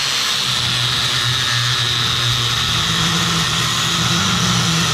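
Electric angle grinder with a cutoff wheel cutting through a metal strip: a loud, steady high whine over a grinding hiss. Its lower hum steps up in pitch about halfway through.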